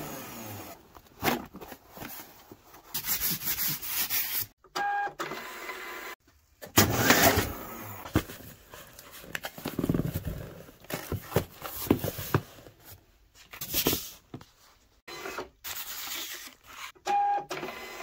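Packing noises: water-activated gummed paper tape being pressed and rubbed down onto a cardboard box in short bouts of rustling and rubbing. A short electronic beep sounds about five seconds in and another near the end.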